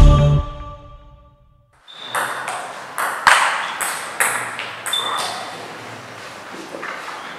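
Music fading out, then a table tennis rally: the ball clicking off the bats and the table in a quick, uneven string of sharp hits, with the echo of a sports hall.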